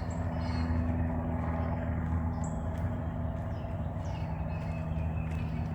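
A steady low mechanical hum, with a few scattered bird chirps over it.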